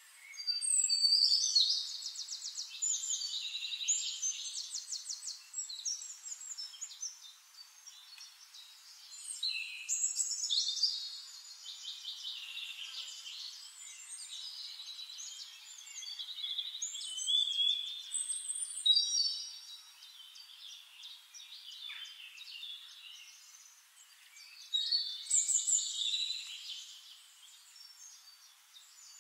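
Songbirds singing: phrases of fast trills and chirps, one after another with short lulls between.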